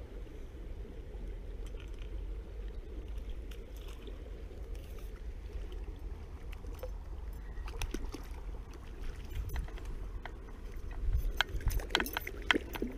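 Steady low rumble of river water and wind on the microphone. Near the end comes a flurry of sharp splashes and clicks as a hooked trout is brought in at the surface.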